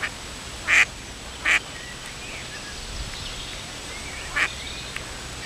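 Ducks quacking: three short, loud quacks, two close together about a second in and one more near the end.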